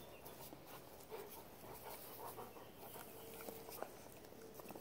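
Great Dane mix puppy panting faintly and licking at a hand, with small wet clicks.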